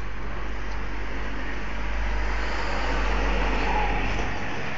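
Steady outdoor rumble and hiss, swelling slightly about halfway through.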